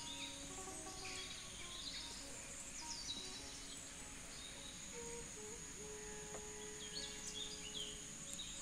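Birds chirping over a steady, high-pitched drone of insects, with soft instrumental music underneath.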